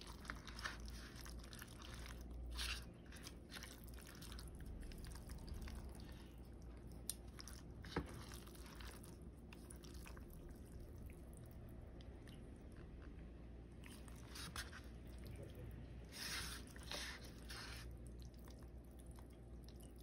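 Chopsticks mixing saucy cold noodles in a paper bowl: faint wet squishing with scattered light clicks of the chopsticks against the bowl, a sharper click about eight seconds in and a louder stretch of stirring near the end.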